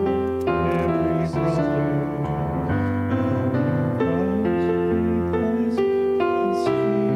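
Piano playing a hymn, held chords moving steadily from one to the next.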